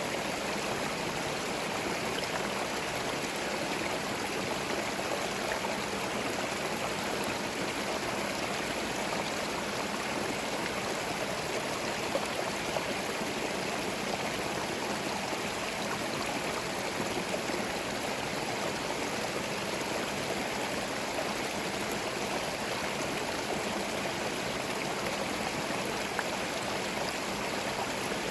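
Small forest stream flowing over stones, a steady babbling and trickling rush of water.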